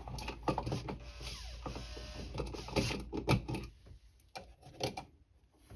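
GFCI receptacle being pushed back into its electrical wall box: a run of plastic and metal clicks, knocks and scraping as the device and its wires are worked in, thinning to a few clicks and then going quiet near the end.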